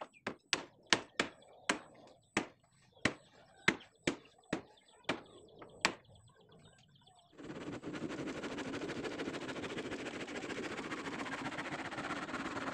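Hammer striking nails into the wooden planks of a boat hull, about a dozen sharp blows at an uneven pace of roughly two a second. About seven seconds in this gives way to a handsaw cutting steadily through a wooden plank.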